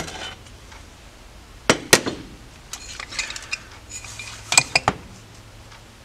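Aluminium carburetor parts knocking and clinking against a steel workbench top as they are handled and set down. There are two sharp knocks about two seconds in, scattered light clinks, and a cluster of clinks near the five-second mark.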